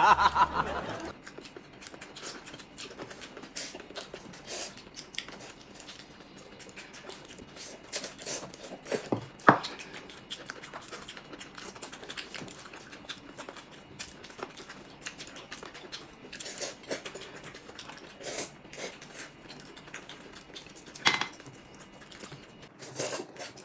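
Eating at a table: scattered small clicks and clinks of chopsticks against bowls and dishes, with quiet chewing, and a few sharper clinks about nine, eighteen and twenty-one seconds in.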